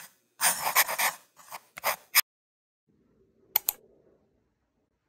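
A quick run of short, scratchy, hissing strokes in the first two seconds, then quiet, broken by a single sharp click about three and a half seconds in.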